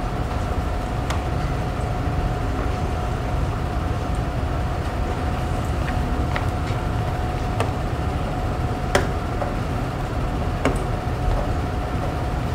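Steady low rumble of room background noise with a faint constant hum, broken by a handful of short sharp clicks and taps.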